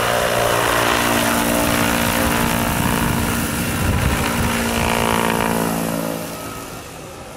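Electric Vario CH-47 Chinook scale model tandem-rotor helicopter flying a close pass: a steady whine from its drive with the swish of its two rotors. It is loudest about four seconds in as it passes overhead, then fades away near the end.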